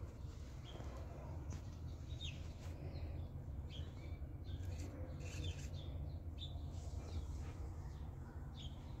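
Small birds chirping now and then in short calls, over a steady low rumble.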